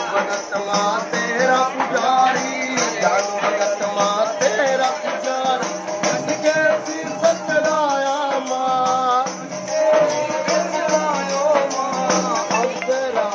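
Devotional Himachali bhajan music: a wavering melody over fast, steady shaken percussion, an instrumental passage between the sung verses.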